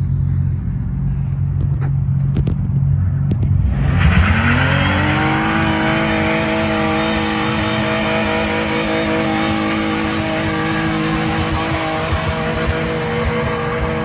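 A car engine running with a low rumble, then about four seconds in it revs up sharply and the pitch climbs, then holds at steady high revs.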